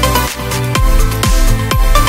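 Upbeat electronic dance music with a steady kick drum, about two beats a second.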